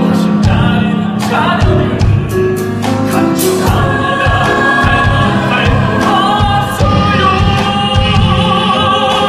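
Live musical-theatre song sung in Korean by a group of voices, with grand piano and a drum kit accompanying. Drum and cymbal strokes punctuate the first few seconds, after which sustained sung lines carry over the accompaniment.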